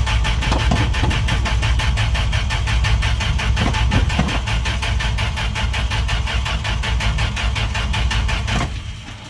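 1969 Dodge D100 pickup's engine cranking on the starter motor with a fast, even chugging rhythm without catching, then cutting off near the end. The engine is getting fuel but will not fire on a weak battery.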